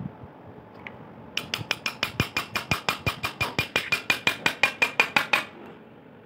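Hammer rapidly tapping a metal punch against a rusted, stuck ball bearing in a ceiling fan's end cover to drive it out. The taps come about seven a second for roughly four seconds, each with a short metallic ring at the same pitch, and grow louder toward the end before stopping.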